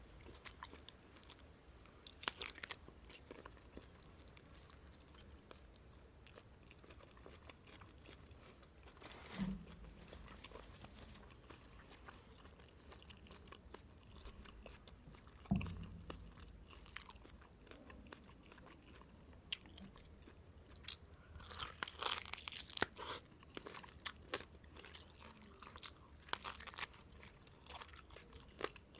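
A person eating bún bò close to the microphone: quiet chewing with small wet mouth clicks and crunching. There are two low knocks about nine and fifteen seconds in, and a busier run of clicks near the end.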